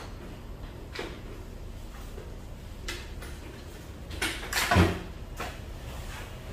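A few separate knocks and clatters, the loudest a double knock about five seconds in, over a low steady background hum.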